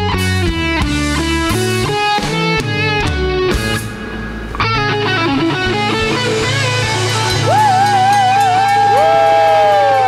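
Rock band playing the instrumental ending of a song on electric guitar, bass and drums. A rhythmic guitar riff runs for about four seconds, then after a brief drop a final chord is struck and held, with long wavering high notes ringing over it near the end.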